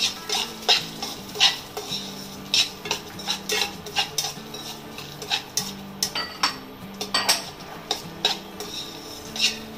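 A spatula scraping and clinking against a kadhai as pumpkin seeds are stirred and roasted in a little ghee, in irregular strokes two or three times a second.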